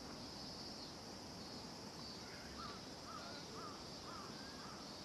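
Faint, steady high-pitched drone of insects, with a bird calling in a run of short repeated notes, about two a second, starting about two seconds in.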